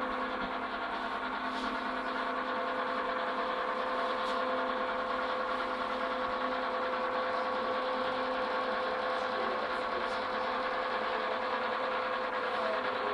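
A small motor running steadily at a constant pitch, with no change in speed.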